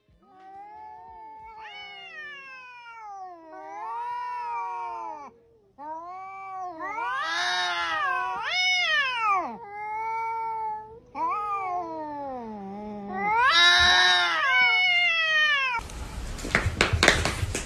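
Domestic cat yowling in a standoff with another cat: a series of long, drawn-out wails that rise and fall in pitch. Near the end the yowling stops and a burst of noisy clattering takes over.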